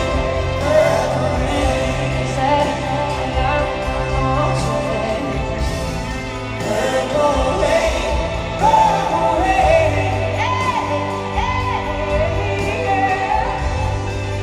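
Live concert music: a female lead vocal singing phrases that slide up and down in pitch over a full band with a steady bass line.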